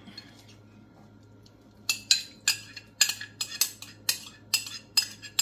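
Metal utensil clinking and scraping against the dish and the stainless steel skillet as shrimp are scraped in and stirred, starting about two seconds in as a quick, irregular run of sharp clinks.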